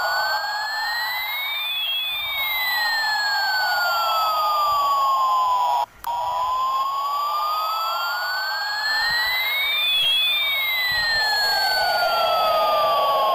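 Electronic siren-like sound: two tones slowly glide up and down in opposite directions, crossing about every eight seconds. It cuts out briefly about six seconds in.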